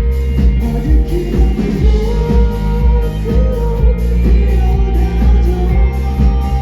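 Live rock band playing loudly, with a singer's voice over electric guitar, bass and drum kit and a heavy low end.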